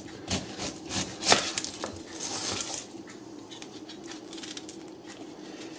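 A kitchen knife cutting through an onion and knocking on a wooden chopping board about four times, then a short scrape. After that comes softer crackling and rustling as the dry, papery onion skin is peeled off with the knife.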